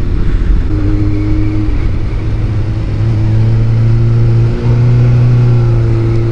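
2004 Suzuki GSX-R600's inline-four engine running while the bike is ridden, with wind noise over the helmet microphone. The engine note holds steady, breaks briefly about four and a half seconds in, then climbs slowly.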